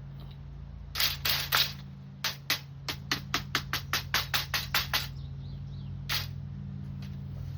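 Sharp metallic clicks and taps from working a metal window screen and its metal spline into the frame: three louder ones about a second in, then a quick even run of about five a second, and one more near the end, over a steady low hum.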